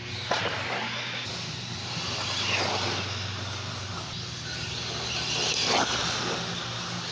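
Radio-controlled short course trucks and buggies driving past on a dirt track. There are about three close passes, each a whine that rises and falls, over a steady low hum.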